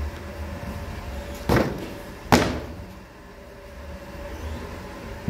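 Two sharp thumps just under a second apart, the second louder with a short ringing tail, as flat rounds of bread dough are slapped down onto a wooden board; a low steady hum runs underneath.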